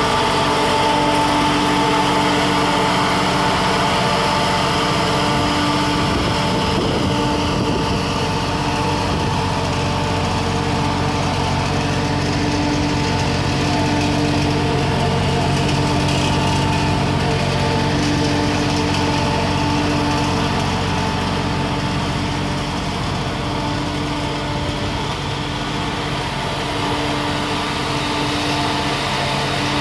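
Allmand Maxi-Heat MH500iQ construction heater's Isuzu diesel engine running steadily at idle, with a higher hum that comes and goes every few seconds.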